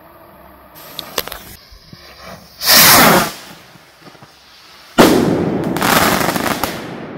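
Two loud firecracker bangs, large Polish bangers (Polenböller), about two seconds apart; the second trails off over about two seconds. Before them come a faint high hiss and a few small sharp clicks.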